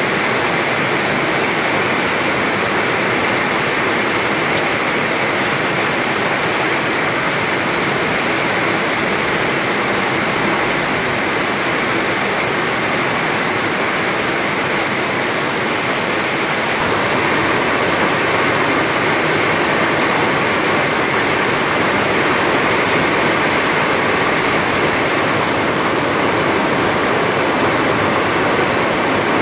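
Steady rain pouring down as a dense, even hiss. A little past halfway the sound shifts slightly and grows a bit louder.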